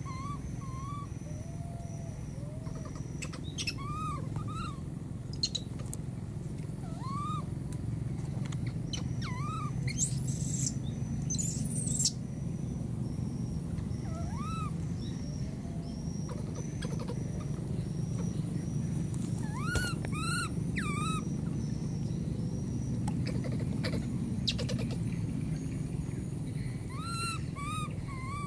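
A baby macaque's short, high, arching coo calls, repeated every few seconds and sometimes in quick runs of two or three, the plaintive cry of an infant monkey on its own.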